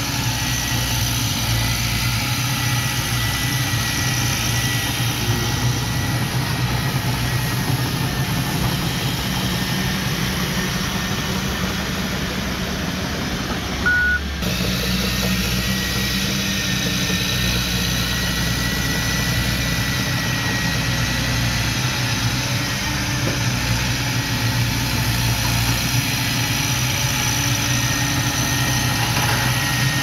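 Komatsu D31P crawler bulldozer's diesel engine running steadily as it pushes dirt and rock fill. There is a brief break with a short blip just after halfway.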